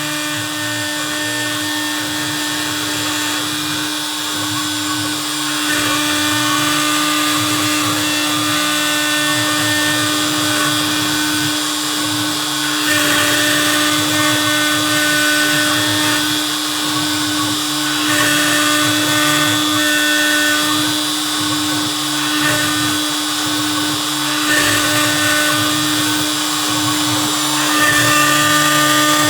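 CNC Piranha desktop CNC router milling HDPE sheet: the router spindle runs at a steady high pitch while the cutting sound swells and changes tone every few seconds as the bit moves through the plastic. It gets a little louder near the end.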